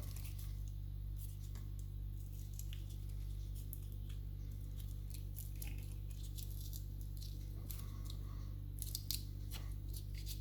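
Tape being peeled off a lever-lock key: soft tearing and crinkling with small scattered clicks over a steady low hum, busiest near the end.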